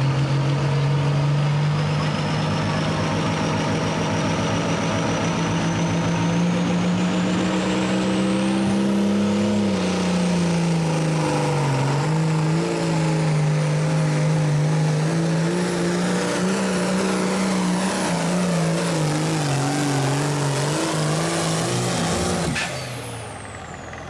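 Turbocharged diesel pulling tractor at full throttle dragging a weight-transfer sled: the engine note and a high turbo whistle climb steadily for the first nine seconds or so. The engine pitch then wavers up and down as it works against the sled, and near the end the throttle is cut, the engine drops off and the turbo whistle falls away.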